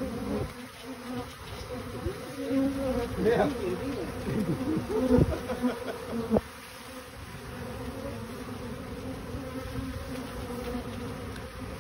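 Honey bees buzzing close by, a steady hum with individual bees flying past whose pitch bends up and down in the middle. There are two sharp taps around five and six seconds in.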